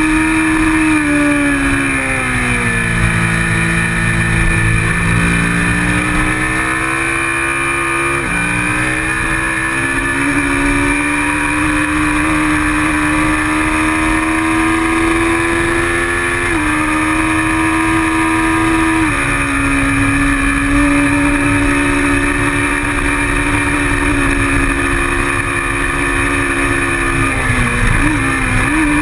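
Kawasaki Ninja 650R's parallel-twin engine at race pace, heard from the bike. The engine note falls away over the first few seconds as it slows, jumps back up about eight seconds in, and holds high. It then drops in pitch in two steps at gear changes and dips briefly near the end, with wind noise underneath.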